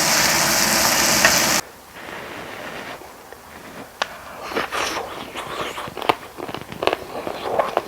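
Pork belly sizzling on a grill, a loud steady hiss that cuts off suddenly about a second and a half in. After that come quieter scattered clicks and taps of utensils and eating.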